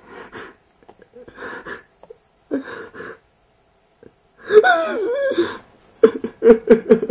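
A person breathing hard in short, gasping breaths, then a loud cry that wavers in pitch about four and a half seconds in, followed by a quick run of short gasps.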